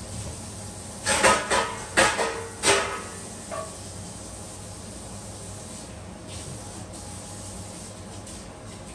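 Four or five sharp clatters of kitchen things being handled in quick succession, then a fainter knock, over a steady hiss in the background.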